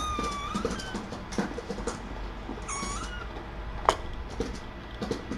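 A kitten mews twice, short high-pitched calls, once at the start and again about three seconds in. Light clicks and knocks from kittens at play, with one sharp click about four seconds in.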